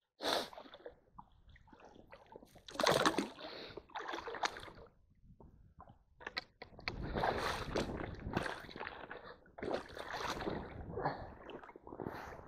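Shallow stream water splashing and sloshing in irregular surges as someone wades over a stony bed and works a two-poled hand net (jokdae) through the current.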